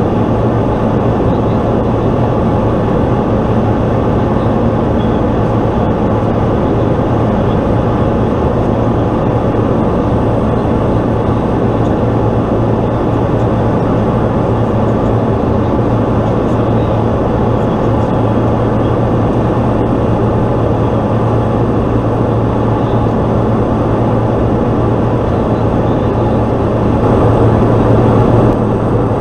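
Pilatus PC-12's single Pratt & Whitney PT6A turboprop engine and propeller running steadily in flight, heard inside the cockpit as a loud, even drone with a strong low hum under a rushing noise. It gets slightly louder briefly near the end.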